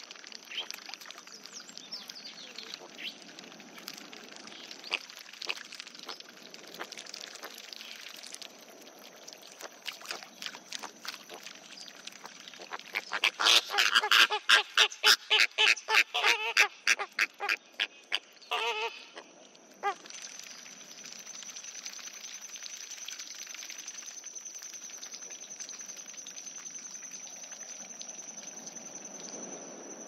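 Flock of flamingos chattering with honking calls. About halfway through comes a loud run of rapid honks, several a second for about five seconds, then a couple more calls before the flock settles back to low chatter.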